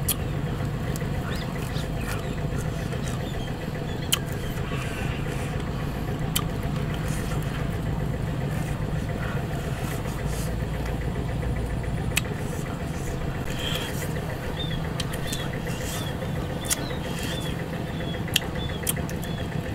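Crisp clicks and crunches of crispy fried meat being torn apart and chewed, over a steady low hum. In the second half, short high chirps repeat about twice a second.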